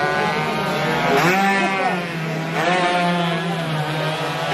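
Road-race motorcycle engines revving, rising and falling in pitch about three times over a steady engine drone.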